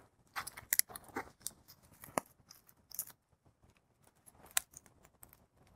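Open fire of dry twigs and sticks crackling, with irregular sharp pops and snaps, the loudest about a second in, near two seconds and again past four seconds.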